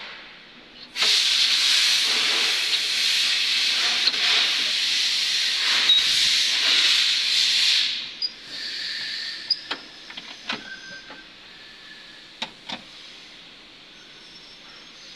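A loud steady hiss, like escaping air, drops out briefly and returns about a second in, then cuts off suddenly about eight seconds in. After it, a few sharp metallic clinks and taps sound as the engine is handled on its hoist chain.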